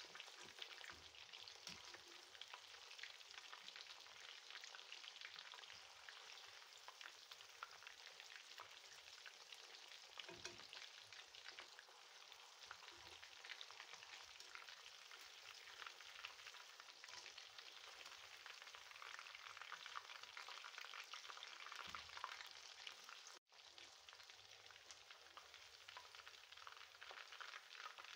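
Chicken wings deep-frying in hot oil in a cast-iron kadai: a steady, dense sizzling crackle of small popping bubbles. The sound cuts out for a moment about three-quarters of the way through, then carries on.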